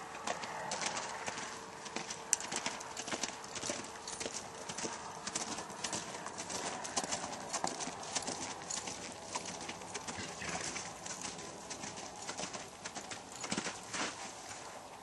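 Hoofbeats of a sorrel Quarter Horse gelding ridden at a lope on a snow-packed arena surface: a quick, uneven run of sharp hoof strikes.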